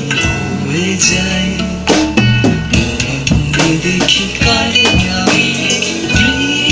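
Band music led by a drum kit, with drum hits about twice a second over other pitched instruments.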